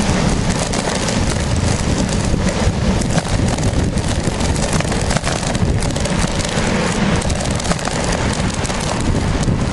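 Wind buffeting the microphone of a bicycle-mounted camera while riding, with a steady low rumble and constant small rattles from the tyres and mount running over a bumpy, patched asphalt cycle path.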